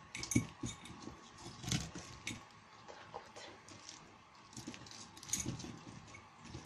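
Pieces of cabbage, beetroot and carrot being put by hand into a glass jar: scattered, irregular soft knocks and clinks against the glass.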